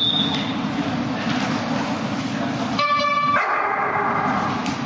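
A dog barks briefly about three seconds in, with a short high-pitched call just before the bark, over a steady low rumble.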